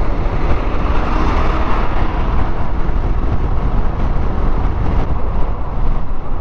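Yamaha NMAX scooter moving at highway speed: a steady rush of wind on the microphone and road noise, heaviest in the low rumble, with no breaks or sudden events.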